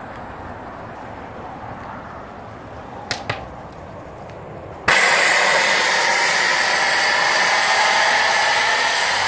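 Steam boiler's pop-off (safety) valve blowing off at about 85 psi: a loud, steady hiss of escaping steam that starts suddenly about halfway through. Before it there is only a low background rush with two sharp clicks about three seconds in.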